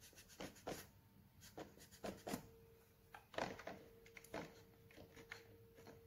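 Faint cloth wiping and rubbing over the plastic underside of an iRobot Roomba 537 as its charging contacts are cleaned: short scraping strokes with light handling knocks, about one a second.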